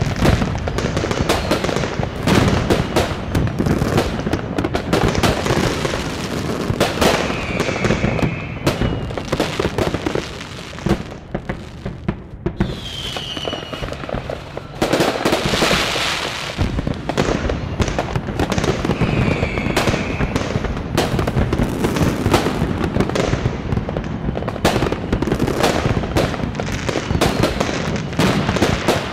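Many fireworks and firecrackers going off at once over a city: a dense, continuous crackle of bangs, with a few short falling whistles and a quieter lull about halfway through.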